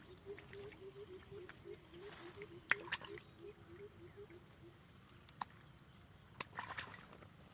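An animal's low call repeated rapidly, about four short notes a second, dying away about two-thirds of the way through, with scattered sharp clicks and rustles and one louder click a little before the middle.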